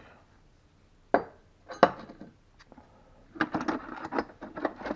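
Small metal tooling pieces (screws, drill bits, holders) being handled and set down, clinking and knocking against each other. There is a few sharp clicks in the first two seconds, then a busier run of clinks from about halfway.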